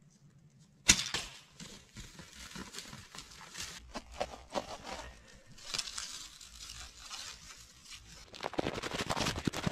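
A single sharp snap about a second in, then boots crunching through snow and dry, brittle brush, with twigs crackling and rustling, heavier near the end.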